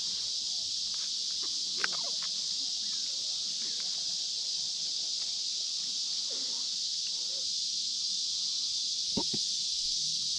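Steady high-pitched drone of an insect chorus, with a couple of faint clicks, one about two seconds in and one near the end.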